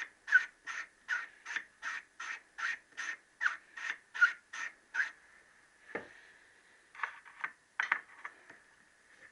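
Small-end bush from a Triumph T120R connecting rod, twisted back and forth by hand on a rolled lap clamped in a vice. It makes a rhythmic squeaky rasp, about three strokes a second for five seconds. Then comes a single knock and a few irregular strokes, as the bush is lapped out to fit.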